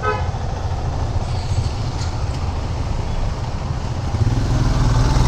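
Motorcycle engines idling, a steady low rumble that grows louder about four seconds in.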